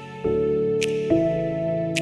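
Soft background music: sustained chords changing about once a second, with a light high tick roughly every second.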